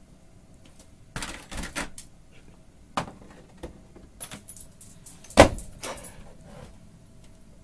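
Plastic pet-door flap clacking and rattling as a dog pushes through it, with knocks of a long chew bone against the door as it jams crosswise in the opening. Several sharp knocks and rattles, the loudest about five and a half seconds in.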